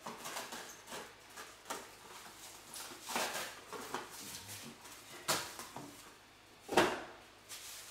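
Plastic cling wrap rustling and crinkling as a ball of dough is wrapped by hand, with light handling clicks. A single sharp knock near the end as something is set down on the countertop.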